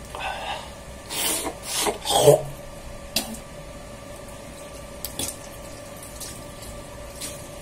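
Face washing and drying: a few short bursts of rubbing and water sounds in the first two and a half seconds, the loudest about two seconds in, then a few light knocks, over a faint steady hum.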